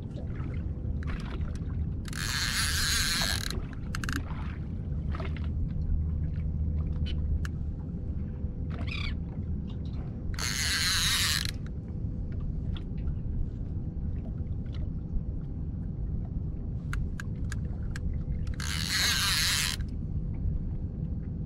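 Fishing reel whirring in three short bursts, each about a second long and several seconds apart, as line is worked in on a hooked kingfish. A steady low rumble runs underneath, with small scattered clicks.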